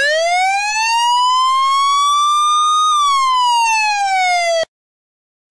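A single electronic, siren-like sound-effect tone that glides slowly upward for about three seconds, then slides back down and cuts off abruptly.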